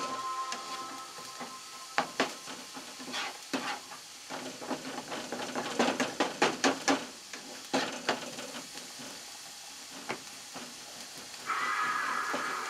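Chopped garlic sizzling gently in oil in a frying pan over low heat. A slotted spatula scrapes and taps against the pan as the garlic is stirred and spread, with a quick run of strokes a little past the middle.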